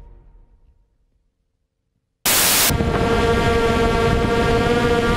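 A music tail fades out into about a second of silence. Then comes a half-second burst of loud hiss, followed by the steady whine of a quadcopter drone's spinning propellers over a hissing background.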